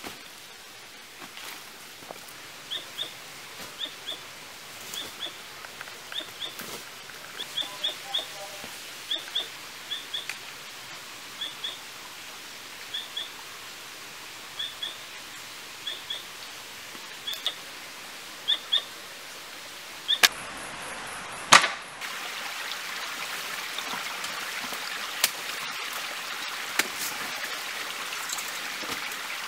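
A bird repeating a short, high two-note chirp about once a second over forest ambience, with a few light clicks and rustles. About two-thirds of the way in come two sharp, loud knocks, and after them a steady rushing hiss like a stream, louder than the forest ambience before it.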